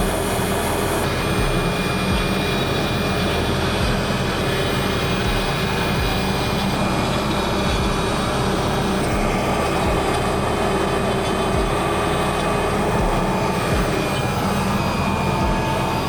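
A woodshop machine running steadily: an even, unbroken mechanical noise with a constant hum and whine.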